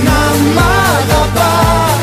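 Greek pop song playing: a steady beat of about two beats a second under a lead melody that bends and wavers in pitch.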